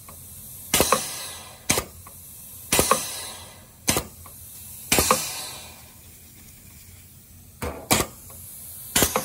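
Pneumatic cylinders of a rotary-valve piston filling machine cycling on a very short stroke: sharp metallic clacks about once a second. Every other clack is followed by a fading hiss of exhausting air, and there is a pause of about two and a half seconds midway.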